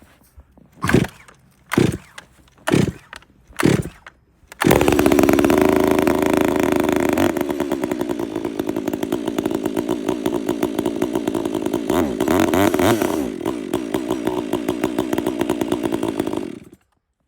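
Stihl 400C two-stroke chainsaw cold start: four pulls of the starter cord about a second apart, then it fires on the fifth pull. It runs high and loud for a few seconds, settles to a steadier lower note, and cuts off suddenly near the end.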